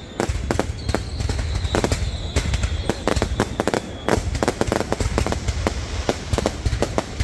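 New Year's Eve fireworks display going off in rapid, irregular pops and bangs over a low rumble, with a thin high whistle through the first half.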